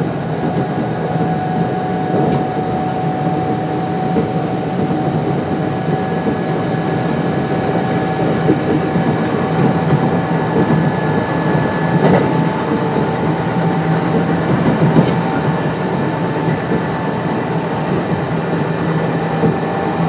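Kintetsu 1259 series electric train (Hitachi GTO-VVVF) running between stations, heard from on board: a steady rumble of wheels and running gear with faint, level motor tones and a few light clacks from rail joints.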